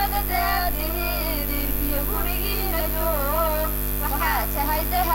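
Girls singing a nasheed into a microphone, one melodic line with gliding, ornamented notes. A steady electrical hum from the sound system runs underneath.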